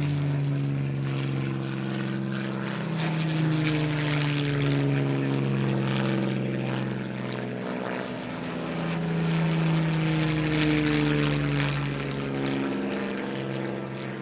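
Piston engines of several WWII propeller fighters in a flypast, their overlapping drones running steadily and slowly shifting in pitch as the aircraft pass.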